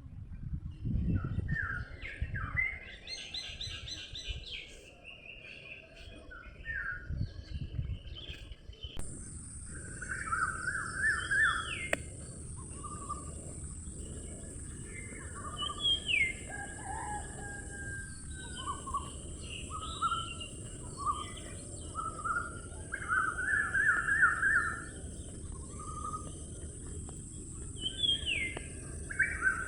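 Songbirds chirping and trilling in many short repeated phrases. A steady high hiss joins in suddenly about nine seconds in and continues under the birdsong.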